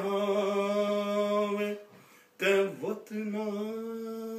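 A man's voice singing long held notes: one steady note, a short break about two seconds in, then a second long note at much the same pitch.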